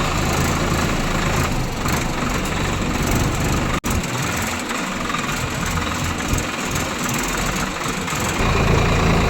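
Heavy diesel engine of earth-moving machinery running steadily, with a low rumble that weakens for a while and grows strong again near the end. The sound drops out for an instant about four seconds in.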